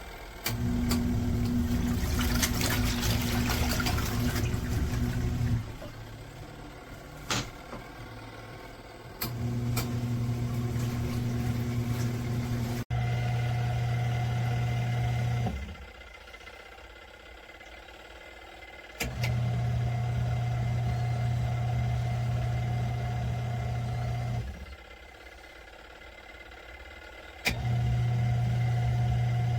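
ZenStyle twin-tub portable washing machine on its wash cycle: the wash motor hums in runs of several seconds, stopping for about three seconds between runs. Water sloshes in the tub during the first run.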